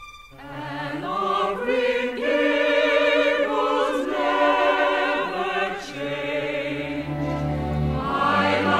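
Choral music: several voices singing held notes in harmony with vibrato, a deep low part coming in about seven seconds in.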